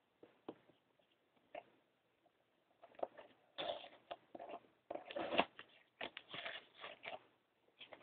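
Product packaging being handled and opened by hand: scattered clicks and scrapes, becoming a busier run of rustling and crinkling from about three seconds in.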